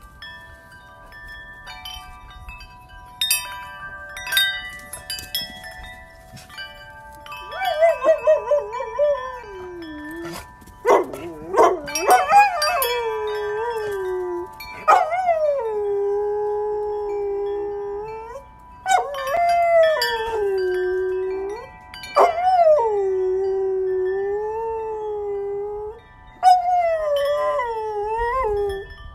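Metal-tube wind chime knocked and ringing, then a golden retriever howling along to it in about six long howls, each wavering, held, and sliding down in pitch, with the chime tones ringing on underneath.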